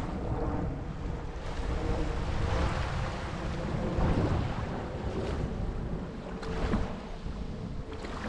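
Gulf of Mexico surf: small waves washing up and ebbing on the beach every second or two, with wind rumbling on the microphone. A faint steady hum runs underneath.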